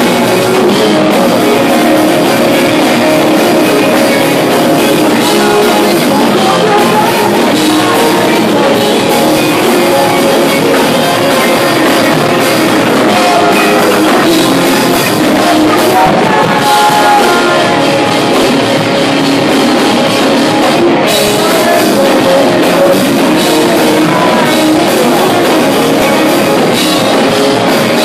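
Live pop punk/post-rock band playing loudly: electric guitars, bass and drum kit.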